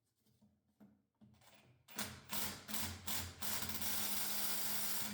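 Power driver with a 3/16 Allen bit working a fastener out of the backhoe control valve: a few short bursts of the trigger, then a steady run that stops just after the end. Faint clicks come before it.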